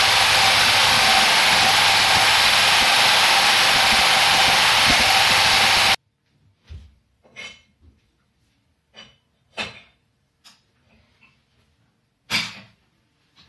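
Fortezzo SCY-1520 diamond core drill boring into the wall with a 180 mm core bit, with dust extraction running through the hose on its shroud: a loud steady running noise that cuts off suddenly about six seconds in. After that come scattered single metal clanks and knocks as a wrench is worked on the core bit, the loudest near the end.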